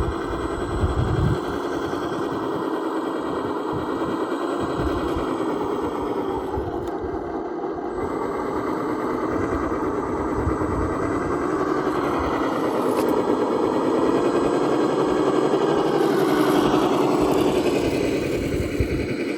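Radio-controlled rock crawler's electric motor and gear drivetrain whining steadily while it crawls, with irregular low knocks underneath. The whine rises in pitch a few seconds before the end.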